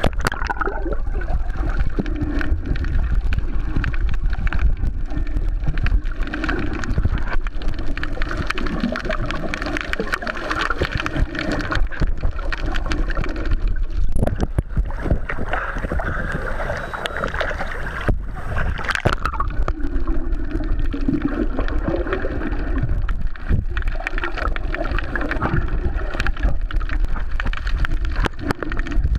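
Underwater noise picked up by a camera held below the surface: a steady low rumble of water against the housing, with a dense crackle of small clicks and shifting muffled sounds.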